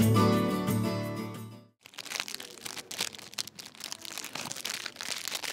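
Instrumental music fades out and stops a little under two seconds in. Then plastic wrap like cellophane crinkles and crackles irregularly with many small clicks.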